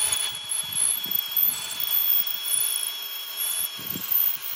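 Milwaukee M18 FUEL hammer drill running at high speed in plain drill mode, hammer mechanism off, boring a quarter-inch multi-purpose bit down into concrete. It gives a steady high motor whine over irregular low knocks and grinding from the bit in the concrete.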